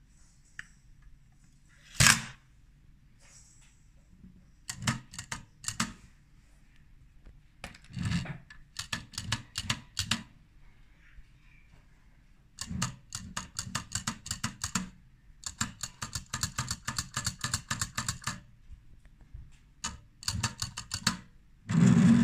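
Zenza Bronica waist-level finder handled by hand, with its faulty magnifier being worked. A sharp snap comes about two seconds in, followed by clusters of small mechanical clicks, long runs of rapid clicking, and a loud burst of clatter near the end.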